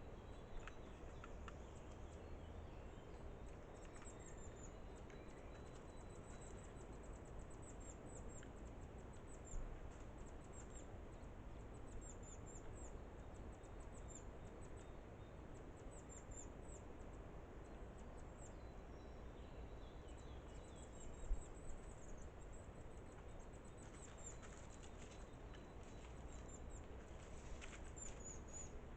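Faint woodland ambience picked up by a trail camera's microphone: a steady low hiss with series of high, thin bird calls. There are a few soft knocks or rustles, the loudest about two-thirds of the way through.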